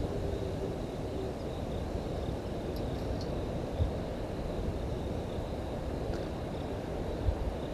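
Outdoor ambience at a waterhole: a low steady rumble with a faint, steady high insect trill and a few brief high chirps.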